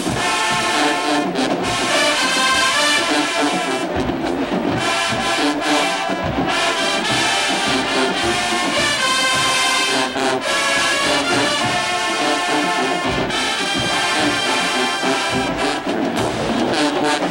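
A large college marching band playing a loud, brass-heavy tune, trombones and trumpets to the fore.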